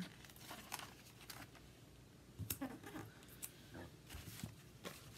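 Paper and sticker sheets being handled on a counter: scattered light rustles and small taps.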